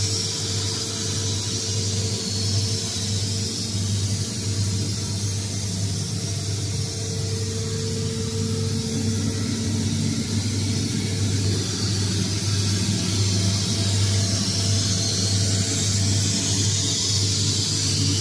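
Steady running hum of industrial machinery: a constant low hum with a steady mid-pitched tone that fades about halfway through and returns, over a haze of hiss.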